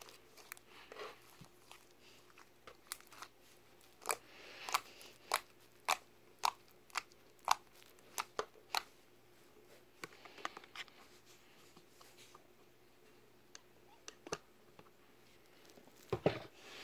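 White fluffy slime squeezed and kneaded by hand, giving a run of sharp pops and crackles, about two a second in the middle, with a louder squelch near the end.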